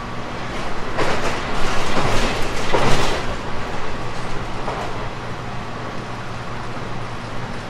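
JR 719 series electric train running: a steady hum, with a burst of louder rumbling clatter from about one second in to about three seconds in, swelling three times, then a smaller clack a little later.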